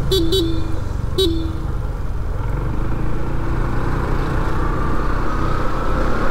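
A vehicle horn toots twice in quick succession, then once more, a little longer, about a second later. Under it runs the steady engine and wind noise of a motorcycle riding on the road.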